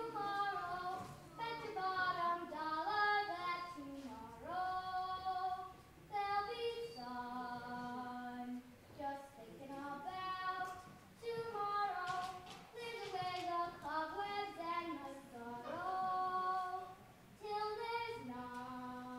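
A young girl singing solo without accompaniment, in phrases with long held notes and short breaths between them.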